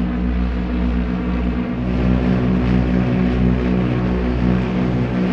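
Propeller biplanes' piston engines droning steadily as they fly past, the drone throbbing at an even beat.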